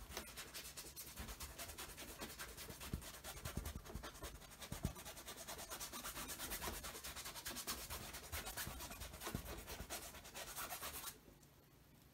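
Paintbrush scrubbing paint onto canvas in quick back-and-forth strokes, a fast run of rasping strokes several a second, stopping about a second before the end.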